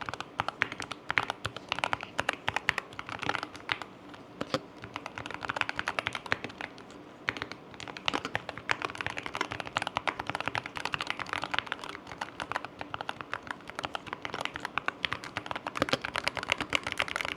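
Typing on a Keychron K2 HE 75% keyboard with Hall effect magnetic switches: rapid key clacks in flurries, with short lulls about four and seven seconds in.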